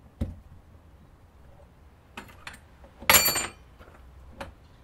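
Small metal tools and parts clinking while a workpiece is set in a mini lathe's chuck: a dull knock at the start, a few light clicks, then a short bright metallic jangle about three seconds in.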